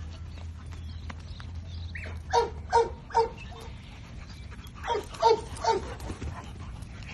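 A dog barking in two quick runs of three barks, a couple of seconds apart.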